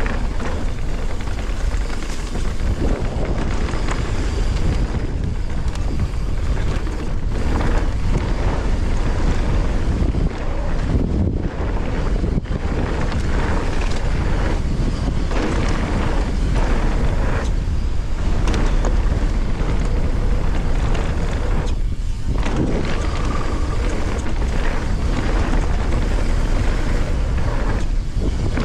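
Wind noise on the microphone over the sound of mountain bike tyres rolling down a dirt and gravel trail, steady throughout.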